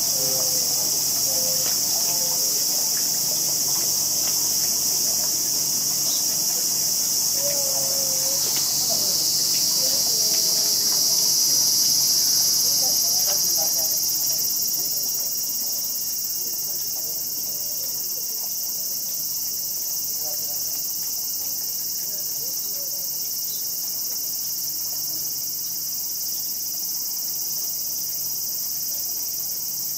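Loud, continuous chorus of summer insects: a steady high-pitched buzzing drone.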